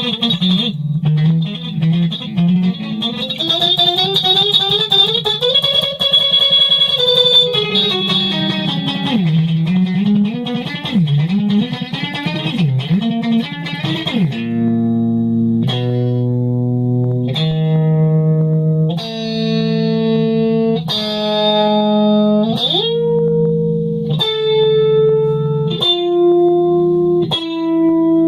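Solo guitar improvisation. For the first half the notes bend and glide in pitch; from about halfway on it plays held chords that change roughly once a second, sliding up or down into some of them.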